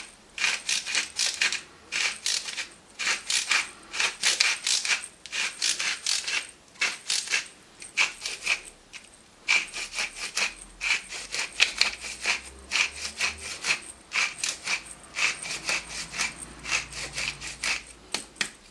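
Pepper mill twisted by hand, grinding peppercorns in repeated bursts of rapid clicks with short pauses between turns.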